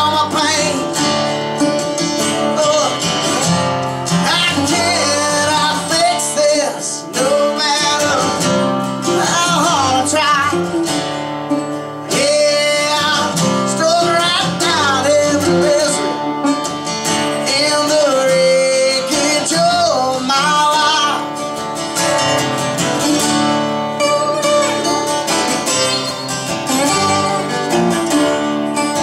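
Acoustic band music: strummed acoustic guitars under a bending, gliding lead line, with a metal-bodied resonator guitar taking the lead toward the end.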